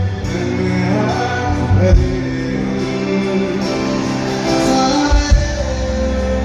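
Live band music through a big PA system: a male voice singing over electric guitar, keyboard and drums, with a couple of heavier drum hits.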